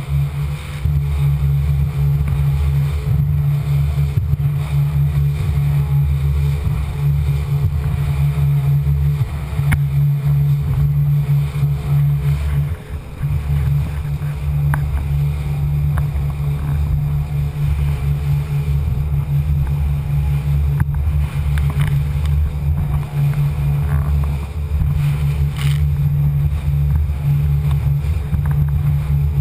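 Rigid inflatable boat running fast over the sea: a loud, steady, low rumble of engine, hull and wind, muffled by a sealed waterproof camera housing, with a brief dip about halfway through.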